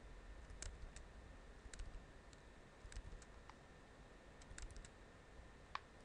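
Faint, irregular clicks of small plastic input-device buttons or keys, about a dozen of them with a short cluster a little after halfway and the sharpest one near the end, over a low, steady hum.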